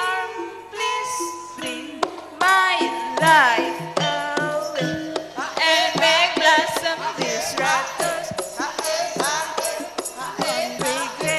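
A woman singing into a microphone over live traditional Javanese music with percussion strokes throughout.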